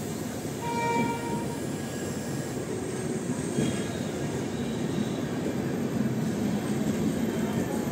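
Indian Railways LHB sleeper coaches of a departing express rolling past, a steady rumble of wheels on rail. A brief horn note sounds about a second in.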